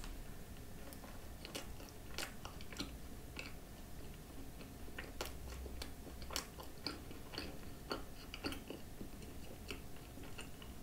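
Close-up chewing of a cream-filled croissant thickly spread with coconut spread, heard as soft, irregular crunches and mouth clicks. The spread has been chilled in the fridge and crunches as it is chewed.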